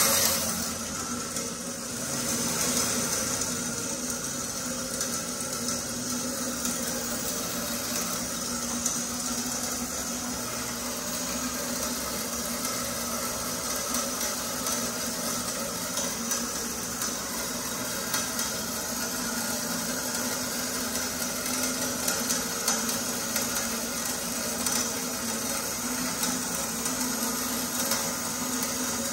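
Bekamak BMSY 320 DGH double-mitre metal-cutting bandsaw running: a steady mechanical hum with a high hiss and occasional light ticks.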